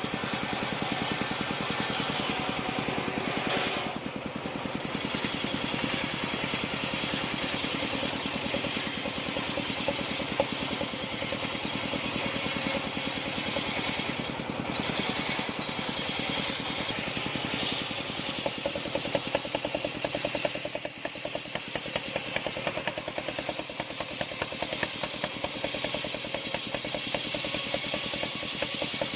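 Engine-driven circular sawmill (serkel) running steadily, its engine firing in a fast, even pulse that grows more pronounced in the second half.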